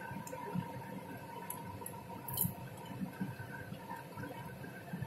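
A few light clinks of a metal spoon against a steel pan of fried rice, the clearest about two and a half seconds in, over a steady faint hum.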